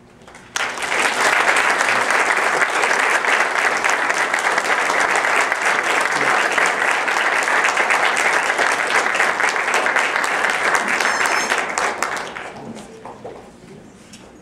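Audience applauding, starting suddenly and holding steady for about eleven seconds, then dying away near the end.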